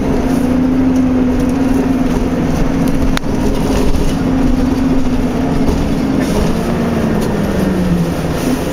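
Cabin noise of a 2003 Orion VII diesel bus under way: the Detroit Diesel Series 50 engine and Allison transmission drivetrain running with a steady whine that slides down in pitch near the end, over road and body rattle. A single sharp click about three seconds in.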